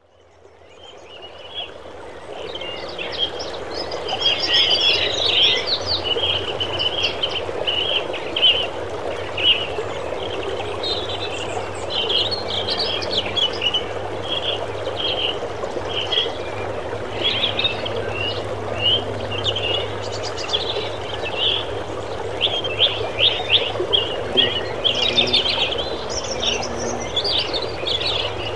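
A brook running steadily while birds chirp over it in quick short notes. The recording fades in over the first few seconds. A fly buzzes briefly twice in the second half.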